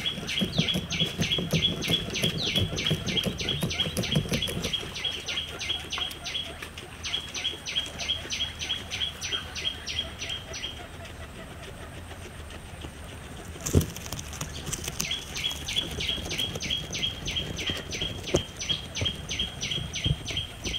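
A guinea pig crunching grass stalks for the first few seconds, under a rapid run of high chirps, about five a second, that stops for a few seconds in the middle and then starts again. One sharp knock about two-thirds of the way through.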